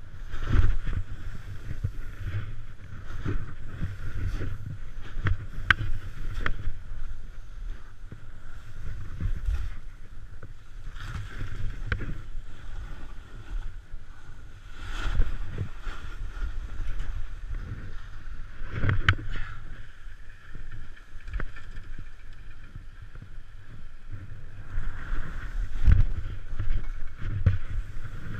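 A snowboard sliding fast through powder snow, heard on an action camera: the board hissing through the snow with wind buffeting the microphone as a low rumble, swelling with each turn every few seconds, and a few sharp clicks.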